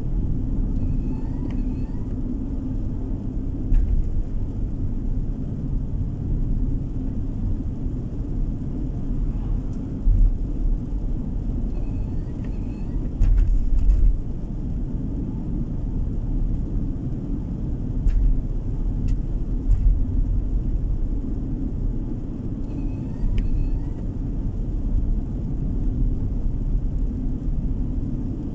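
A car driving along a road, heard from inside the car: steady low rumble of tyres and engine, broken by a few short knocks as it goes over bumps.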